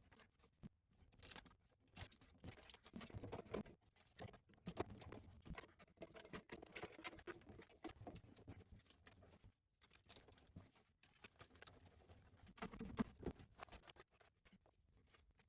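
Faint handling noise: scattered light taps and clicks with rustling and crinkling, irregular and unrhythmic.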